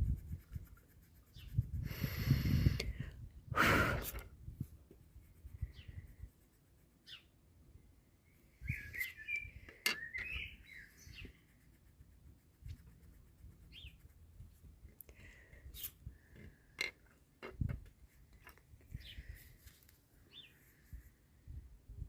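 Small birds chirping on and off, most busily around ten seconds in. Wind rumbles on the microphone throughout, with two louder rustling bursts in the first few seconds.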